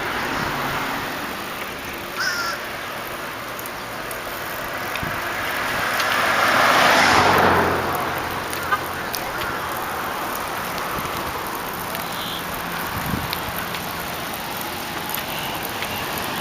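A car passes, swelling to its loudest about seven seconds in and then fading, over steady wind and road noise. A crow caws once about two seconds in.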